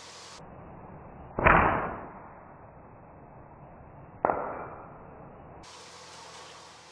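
Two shots from a Cleaver Pro flatband slingshot, about three seconds apart: each a sharp crack of the bands snapping forward on release, fading over about half a second. The first is louder.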